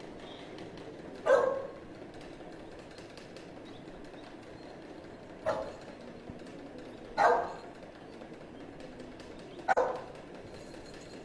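A dog barking: four short, loud barks spaced a few seconds apart, the first about a second in and the last a quick double.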